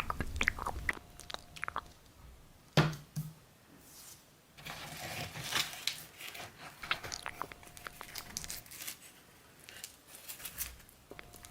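Close-miked ASMR eating sounds: bites and crunchy, crackly chewing of pizza, with one sharp snap about three seconds in and a denser run of crunching midway.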